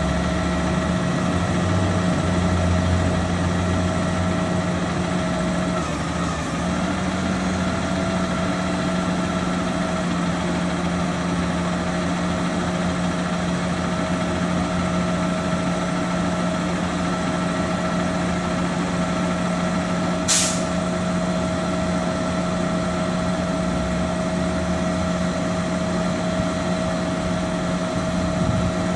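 Automated side-loader garbage truck running while stopped, a steady diesel hum with a constant whine over it. About twenty seconds in comes a short sharp hiss of air.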